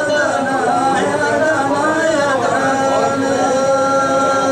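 Hadrami dan singing: a voice sings a wavering, ornamented melodic line, then holds one long steady note from about two and a half seconds in.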